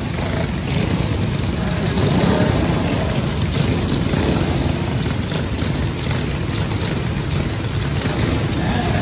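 Several small racing go-kart engines running together at idle, a steady mixed engine drone.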